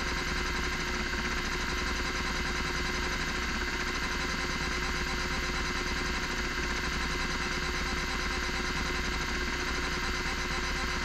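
Miniscribe 3425 20 MB MFM hard drive running: its spindle motor gives a steady, loud whine while the stepper-motor head actuator steps rapidly back and forth across the tracks in a seek test. The drive is hitting bad sectors, and the owner assumes head 0 has crashed on the platter.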